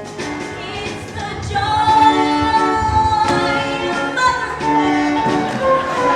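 A show tune from a stage musical, sung by young cast members over instrumental backing; the song gets louder about a second and a half in.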